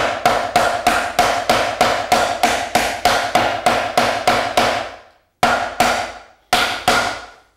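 Wooden mallet striking a hardwood beater block on a dovetail joint, driving the joint fully home. A quick, even run of about three or four blows a second, each with a short wooden ring, stops about five seconds in. After a brief pause a few slower blows follow near the end.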